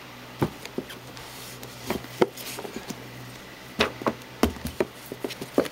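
A book being pulled out from a packed wooden bookshelf: irregular knocks and scrapes of books rubbing against each other and the shelf.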